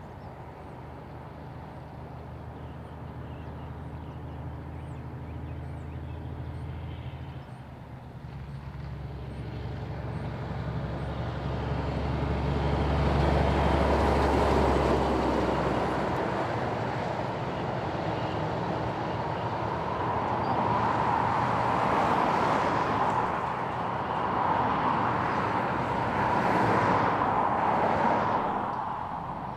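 Heavy diesel trucks passing on a highway. A low engine drone builds to its loudest as a truck and trailer pass close about halfway through. After that comes tyre and road noise from further traffic, rising and falling with each passing vehicle.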